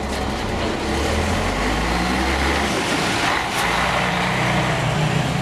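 Local service bus running on the road, with engine drone and road noise. The low engine note gives way to a higher one about halfway through, with a brief hiss just past the middle.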